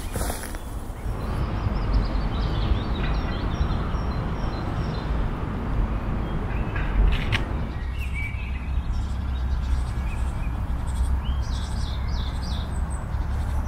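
Small forest birds chirping in scattered short calls over a steady low outdoor rumble, with a brief sharp knock about seven seconds in.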